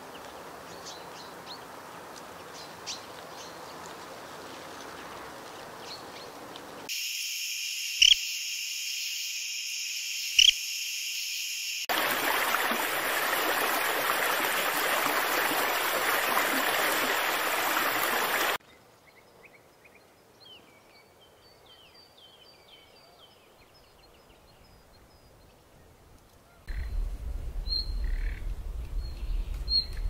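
A run of changing nature sounds: faint chirps of small birds, then a steady high-pitched chorus broken by two sharp clicks, then a steady rush of running water, then quieter bird chirping, with a low rumble and more chirps near the end.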